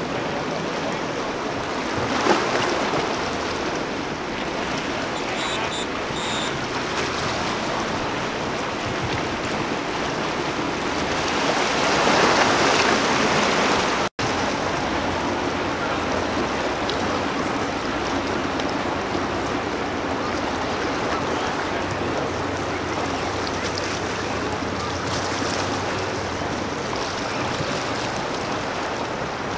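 Rushing water and surf in a tidal inlet, with the low drone of a sportfishing boat's inboard engines underneath. The water noise swells for a couple of seconds just before halfway, and the sound drops out for an instant at a cut.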